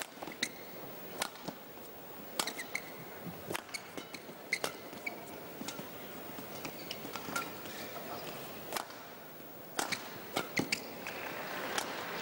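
Badminton rackets striking a shuttlecock in a rally: sharp, separate hits about once a second, irregularly spaced, over low crowd murmur that swells near the end.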